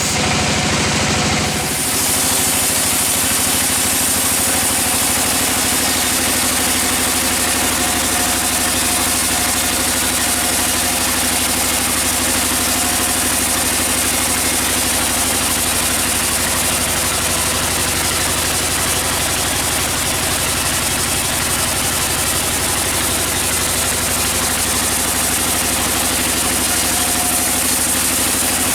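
Sawmill machinery running steadily, a loud engine-driven drone with a dense hiss over it, changing in tone about two seconds in.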